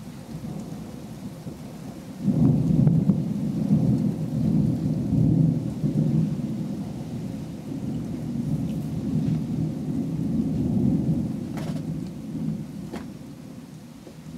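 Thunder: a loud, low rolling peal breaks in suddenly about two seconds in, rolls on in waves for about ten seconds, then fades. A few sharp ticks come near the end.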